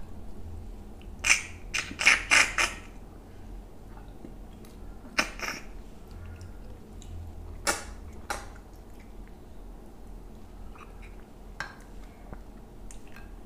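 Close-up eating sounds: wet mouth clicks and smacks while chewing, and fingers working rice on a glass plate. There is a quick cluster of sharp clicks about a second in, then single ones every few seconds.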